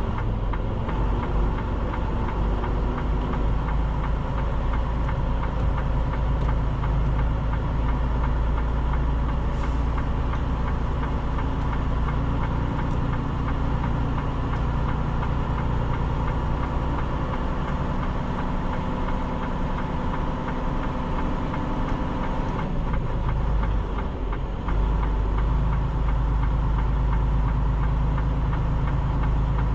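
Diesel engine of a semi-truck running steadily at low speed while the rig is manoeuvring, with a brief dip about 23 seconds in before the engine sound picks up a little louder.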